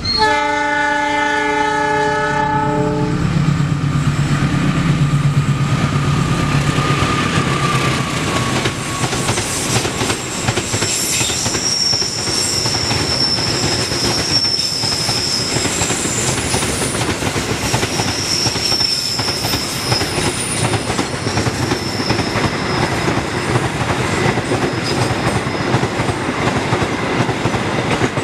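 Container freight train's horn sounds for about three seconds as it comes in. The long train of container wagons then rolls past close by with steady wheel-on-rail noise and clickety-clack. High wheel squeals come twice on the curve.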